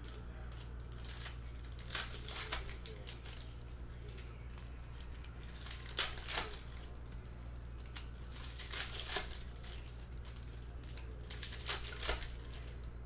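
Trading-card pack wrappers crinkling and tearing open, in short bursts every second or two, over a low steady hum.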